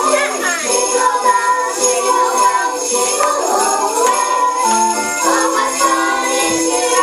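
Music with sleigh bells jingling steadily along with a melody.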